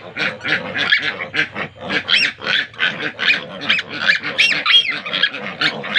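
A litter of three-day-old piglets squealing and grunting, many short overlapping calls several a second.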